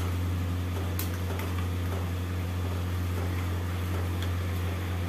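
A steady low hum, with a few light clicks of a steel spoon handle knocking against a steel pot as potato slices are stirred in water.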